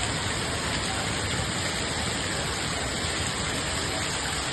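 Heavy rain pouring down onto a flooded street: a steady, even hiss.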